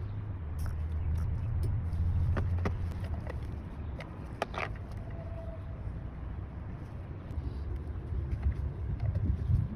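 Plastic parts of a hand-held brake bleeder vacuum pump kit being handled, giving a few sharp clicks, over a steady low rumble.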